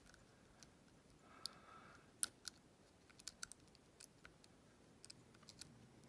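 Faint, irregular metallic clicks of a lock pick working the pin stack of an old brass Ruko padlock under tension, a few clicks at a time.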